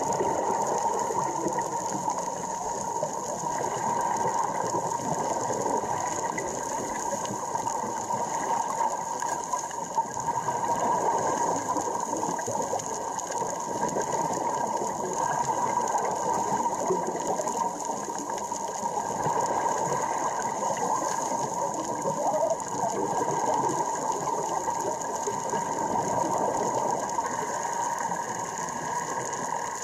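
Underwater reef ambience: a steady, dense crackling with a constant high tone running under it.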